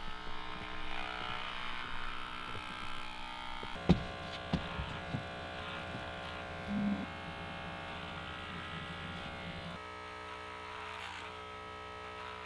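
Electric hair clippers buzzing steadily as they shave hair off a head, with a sharp knock about four seconds in and a few lighter clicks after it.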